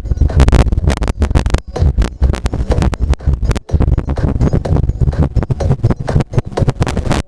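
Music played from a cassette on a Sanyo boombox, picked up by a microphone with a weak battery, so the sound breaks up with rapid crackly dropouts many times a second. The bass stays strong.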